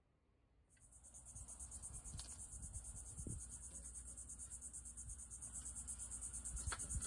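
Steady, high-pitched pulsing chorus of insects, starting about a second in, over a low rumble, with a couple of faint clicks.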